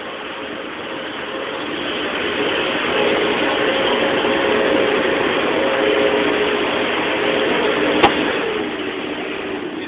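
A motor engine running, probably from a passing vehicle, growing louder toward the middle and fading near the end. A single sharp click about eight seconds in.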